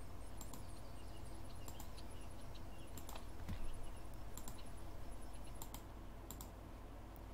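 Scattered light clicks of a computer mouse, about a dozen at irregular spacing, as edges are picked one by one in a CAD program, over a steady low electrical hum.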